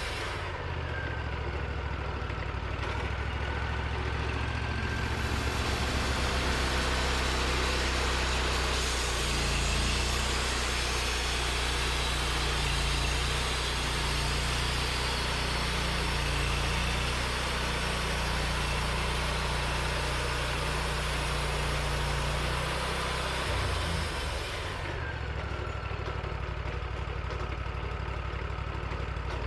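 Portable sawmill's engine running steadily, with the blade cutting through a white pine log from about five seconds in until near the end, adding a loud hiss over the engine.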